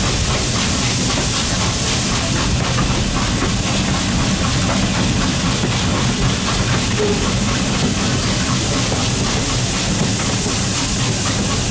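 Train hauled by Norfolk and Western J class steam locomotive 611 on the move: a steady, loud running noise of the locomotive and cars on the rails.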